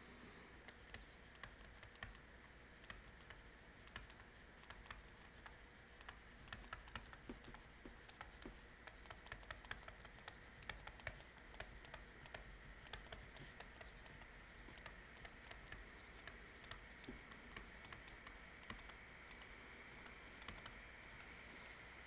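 Faint, irregular clicks and taps of a stylus writing on a tablet screen, several a second, over quiet room tone.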